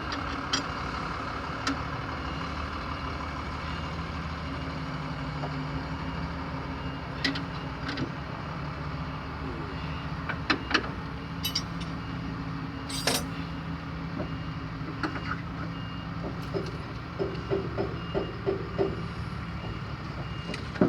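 A steady engine drone runs throughout. Sharp metallic clinks and taps of tools on metal come now and then, most of them in the second half.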